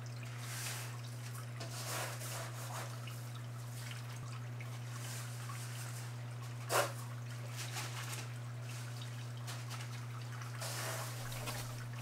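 Water dripping and trickling inside a paludarium: scattered drops, with one louder drop about seven seconds in, over a steady low hum.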